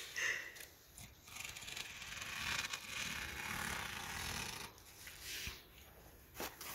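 Scissors cutting through a vinyl billboard tarp: one continuous scraping cut lasting about three seconds, starting a second in.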